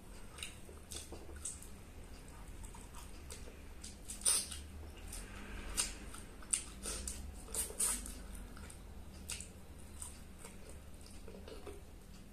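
Close-up eating sounds: a person chewing chicken and rice with the mouth open, with wet lip smacks and fingers squishing rice on a banana leaf. Irregular short clicks and smacks, the loudest about four seconds in and a cluster a little before the eight-second mark.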